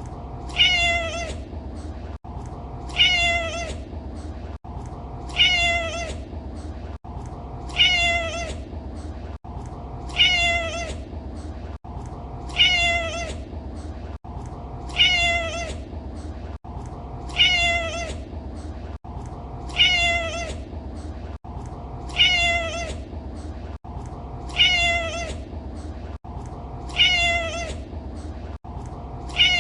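Domestic cat meowing: the same short meow repeats about every two and a half seconds, over a steady low background hum.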